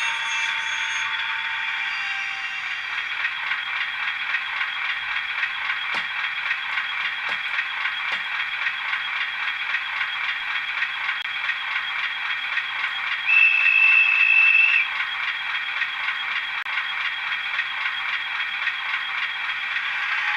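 An OO gauge model train running on the track, with a steady whirring and rattling from its motor and wheels. About two-thirds of the way through, one high whistle-like note holds for about a second and a half.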